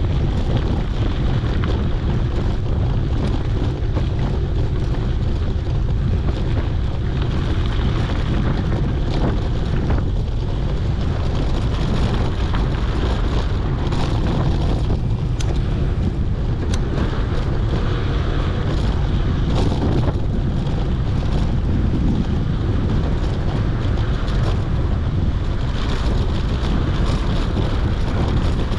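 Strong wind buffeting a GoPro's microphone: a loud, steady low rumble, with scattered faint clicks and rattles throughout.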